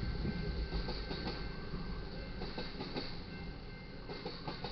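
Freight train's rail cars rolling past over the crossing, wheels clacking over the rail joints. The rumble fades as the end of the train goes by.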